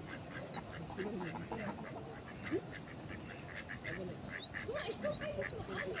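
Mallard ducks quacking in short runs of calls, with small birds chirping high above, including a quick trill of repeated notes in the first couple of seconds, over a steady background rush.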